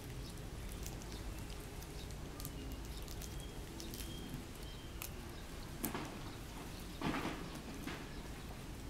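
Dry leaf litter crackling and rustling as a baby long-tailed macaque squirms and crawls on the ground, with scattered small clicks and two louder rustles about six and seven seconds in. A few faint high chirps sound in the middle.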